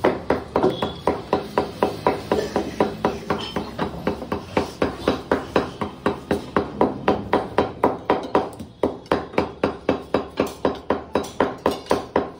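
A cleaver chopping rapidly and evenly on a wooden butcher's block, about four strokes a second, without a break.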